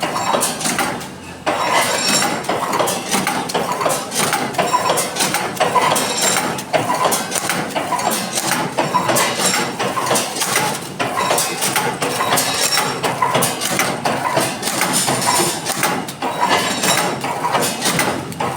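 Incense-stick counting and pouch-packing machine running: a continuous metallic clatter of moving parts with a repeating beat about once a second, each beat one packing cycle.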